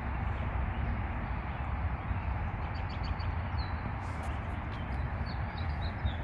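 A few short, high bird chirps over a steady rushing noise with a strong low rumble.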